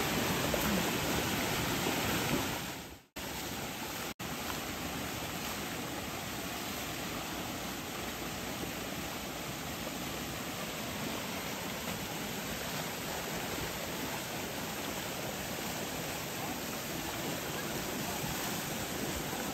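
A shallow river rushing steadily, a constant noise of flowing water churning around elephants bathing in it. The sound fades out and cuts back in, slightly quieter, about three seconds in.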